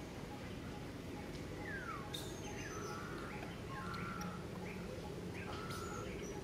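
Several short, high chirping calls: a falling whistle about two seconds in, then a run of brief chirps, over a steady background hiss.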